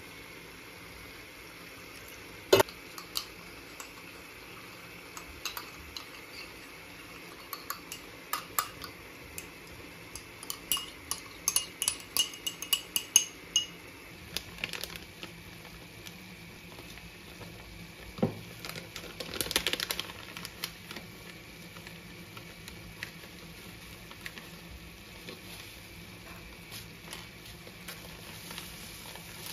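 A spoon clinks quickly against a ceramic cup while tomato paste is stirred into water, with ringing ticks for about three seconds. The mixture then goes into a frying pan of vegetables, which is stirred, with a short burst of sizzling and scraping over a soft, steady sizzle from the pan. There is also a sharp knock of kitchenware early on.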